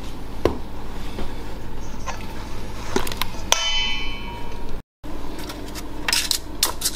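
A spoon knocking and scraping against a bowl as shredded wheat is stirred into melted butter and fudge. There are scattered clicks, and one ringing clang comes about halfway through. The sound cuts out for a split second about two-thirds of the way through.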